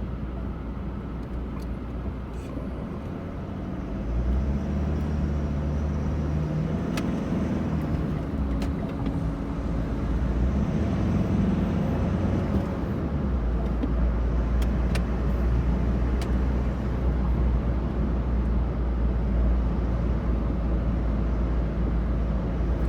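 Engine and road noise of a vehicle on the move: a steady low rumble that gets louder about four seconds in, with the engine note shifting for several seconds and a few light clicks.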